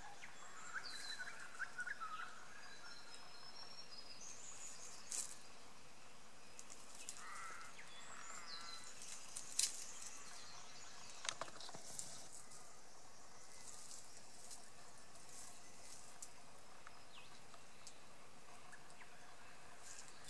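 Faint outdoor ambience with scattered wild bird calls, short chirps and gliding whistled phrases, and a few brief sharp clicks.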